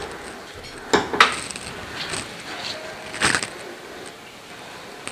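Wooden upper kitchen-cabinet doors being opened and shut by hand, giving a few sharp clicks and knocks: about a second in, near two seconds, and a louder cluster a little past three seconds.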